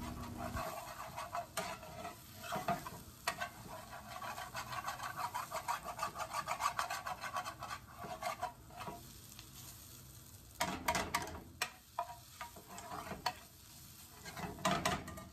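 A metal spoon scraping and stirring across the bottom of a hot skillet of sizzling onions, tomatoes and tomato paste, loosening the browned tomato paste stuck to the pan. There is a quick run of rapid, even scrapes through the middle, then slower single strokes with a few sharper ones near the end.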